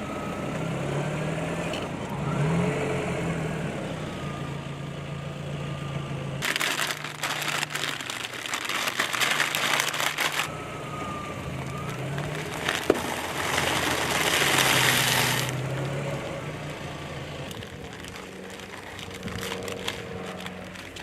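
A car engine running at low speed while its tyre rolls over and crushes objects. There are two spells of loud crunching and crackling, one about six seconds in lasting about four seconds and one about thirteen seconds in.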